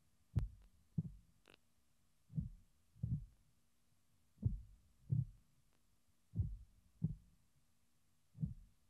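Slow heartbeat sound effect: low, dull double thumps, one beat pair about every two seconds.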